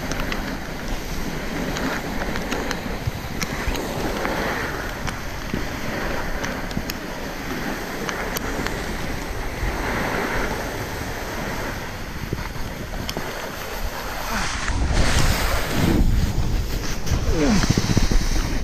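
Snowboard sliding down a snowy slope: a steady rushing hiss of the board on snow, with wind buffeting the microphone. It grows louder and heavier in the last few seconds as the board ploughs through soft, powdery snow.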